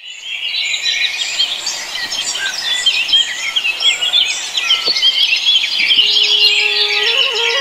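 Dense chorus of many small birds chirping and calling over one another in quick rising and falling chirps. About six seconds in, a single held musical note enters and starts climbing in steps as a melody begins.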